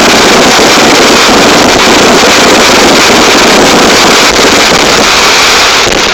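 A dense, continuous fireworks barrage, heard as a steady loud rush of crackle that overloads the phone's microphone, easing slightly near the end.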